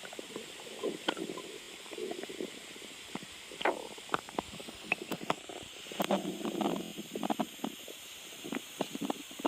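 A person's stomach growling: irregular gurgles and bubbling rumbles with sharp little clicks, busiest about six to seven seconds in, over a steady faint hiss.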